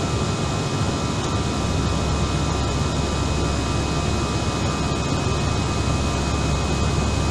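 Steady jet engine and airflow noise heard inside the cabin of an Airbus-family airliner climbing out after takeoff, with a few faint steady high tones over it.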